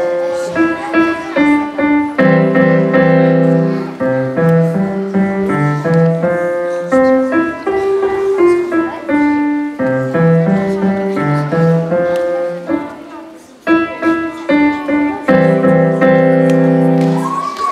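Piano music: a melody of separate notes over held chords. It dips briefly about two-thirds of the way through, then carries on.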